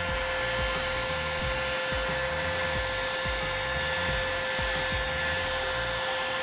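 Hot-air blower running steadily with a fan whine, starting just before and cutting off just after, used to heat and soften the adhesive under a shattered touchscreen digitizer so the glass can be peeled off.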